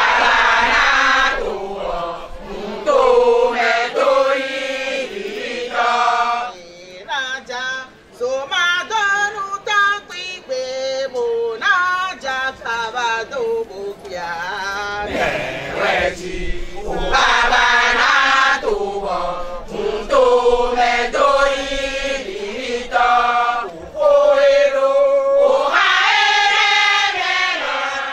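Chorus of women singing a chant together, without drums. Long held notes alternate with quicker, shorter phrases.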